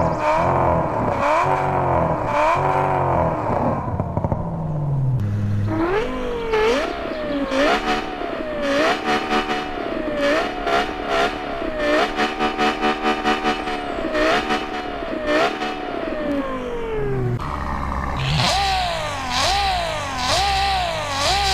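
Engine revving up and down over and over, its pitch rising and falling about once a second.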